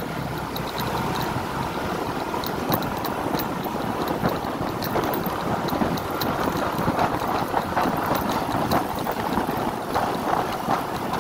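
Riding noise of a first-generation Yamaha NMAX scooter under way: its engine runs steadily under a constant rush of wind over the microphone.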